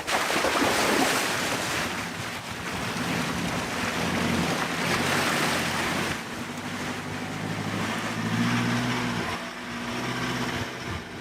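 Water splashing and rushing around an Isuzu D-Max ute as it fords a river, starting suddenly as the vehicle enters the water. The engine runs steadily underneath the spray.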